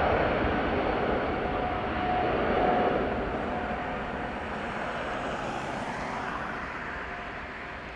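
Boeing 777-300ER's twin GE90-115B turbofans at takeoff thrust on the takeoff roll: a steady jet roar with a faint whining tone that comes and goes, growing steadily quieter as the aircraft moves away down the runway.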